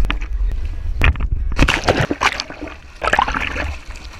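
Splashing sea water as a swimmer goes into the sea and churns the surface right beside the microphone, in irregular loud bursts that die down near the end.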